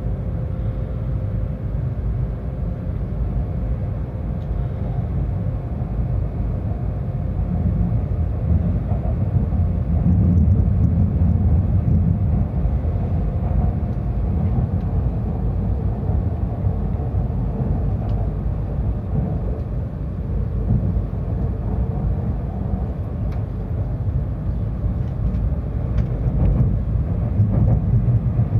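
Tohoku Shinkansen train running, heard inside the passenger car: a steady low rumble, with a faint whine that comes and goes.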